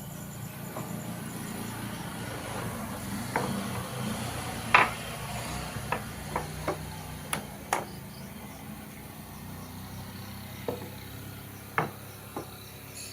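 About ten sharp, irregular knocks and taps, the loudest nearly five seconds in, with a cluster between about three and eight seconds and three more near the end, over a low steady hum.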